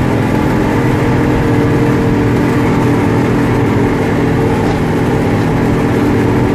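Aktiv Snow Trac ST-4 snowcat running flat out, heard from inside the cab as a loud, steady engine note with an even pitch.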